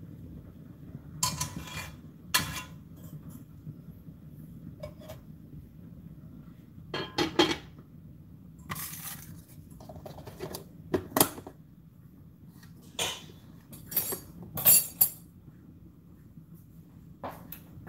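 A spoon clinking and scraping against pots and pans in scattered bursts of clatter, about ten sharp clinks with short gaps between them, over a low steady hum.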